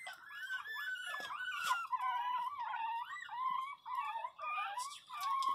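Pinscher puppies whining and crying: a run of high-pitched, wavering whimpers, several voices overlapping, with brief gaps.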